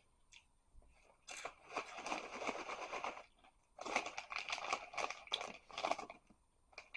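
Crackly crunching and crinkling from eating crunchy barbecue snack fries, in two stretches of about two seconds each.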